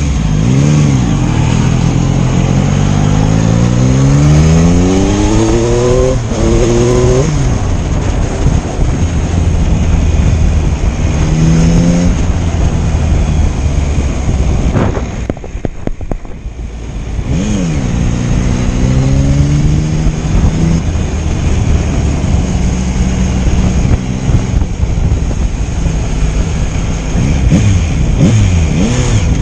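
Yamaha MT-09's three-cylinder engine under way, its pitch climbing through the revs and dropping back at each gear change. About halfway it falls away briefly, then climbs again.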